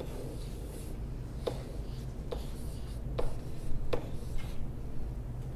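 Dry-erase marker writing on a whiteboard: rubbing strokes with about four sharp taps as the marker meets the board, over a steady low room hum.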